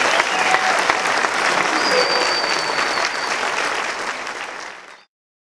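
Concert audience applauding, with a long high whistle from the crowd in the middle; the applause fades out and stops about five seconds in.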